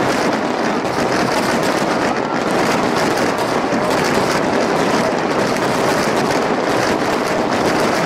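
Starmine fireworks barrage: many aerial shells bursting in quick succession, their reports running together into one steady, dense din without a break.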